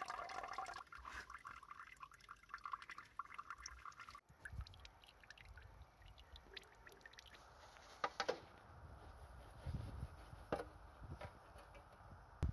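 Water-laden engine oil draining in a thin stream from the oil-pan drain hole of a 1938 Volvo LV94 and splashing into a basin below: the sump is full of water. About four seconds in the pouring cuts off abruptly, leaving quieter handling noise with a couple of sharp clicks.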